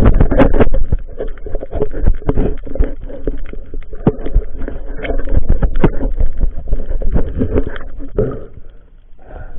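Muffled underwater knocking and clatter, dense and irregular, as a diver handles a shell-encrusted rock on the seabed, heard through a camera's waterproof housing. It is loudest in the first second and dies down near the end.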